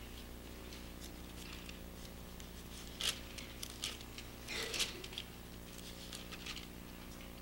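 Bible pages being turned and leafed through near a microphone: light paper rustles, the two loudest about three seconds and about four and a half seconds in, over a steady low electrical hum.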